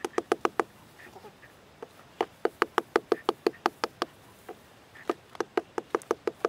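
Rapid, evenly spaced sharp knocks or clicks, about seven a second, in three short runs: one at the start, one about two seconds in, and one about five seconds in.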